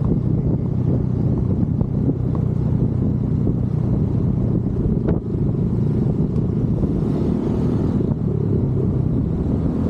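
Motorcycle on the move: steady low engine and road noise, with a single sharp click about five seconds in.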